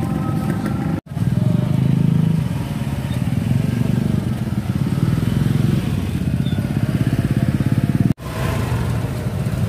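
Motorcycle and scooter engines running at low speed close by, a steady low pulsing, with faint crowd voices behind. The sound drops out briefly about a second in and again near the end, at cuts.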